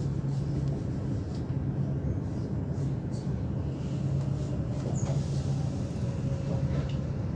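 Train running on the rails heard from inside a carriage: a steady rumble with a low hum, and a few brief faint high squeaks.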